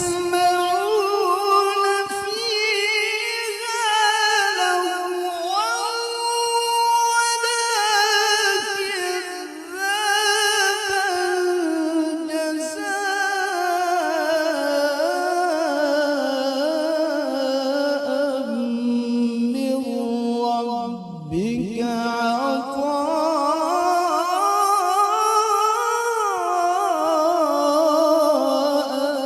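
A male qari reciting the Quran in melodic tilawah style: one unaccompanied voice drawing out long, ornamented notes that rise and fall. The voice breaks for a quick breath about 21 seconds in and then climbs again.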